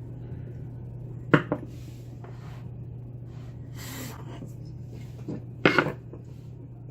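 A few sharp metal clicks and clunks as a picked lock is handled, one about a second in and a cluster near the end, over a steady low hum.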